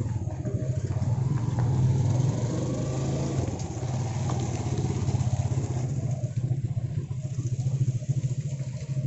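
Motorcycle engine running at low speed with a steady, fast low putter, heard from on the bike.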